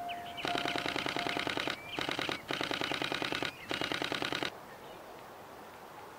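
Nikon D500 camera shutter firing in continuous high-speed bursts: four runs of rapid clicks at about ten a second, stopping about four and a half seconds in.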